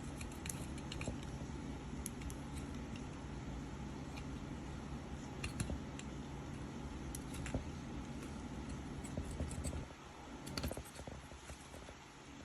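Steady low hum with scattered light clicks and taps of tools on a circuit board as old solder is removed; the hum drops out about ten seconds in, leaving only a few clicks.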